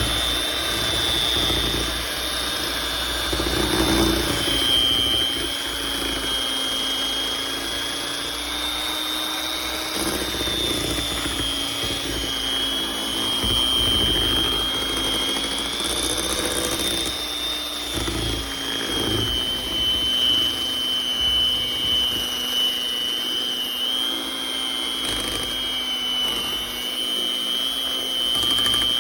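An electric hand mixer's motor running steadily with a whine that dips and rises slightly in pitch several times.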